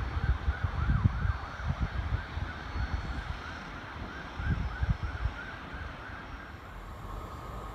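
A distant warbling siren, its pitch rising and falling about three times a second, fading out near the end, with wind buffeting the microphone.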